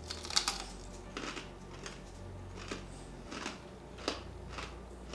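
Crispy roast pork crackling being chewed: a string of sharp, crisp crunches, irregular, about one or two a second.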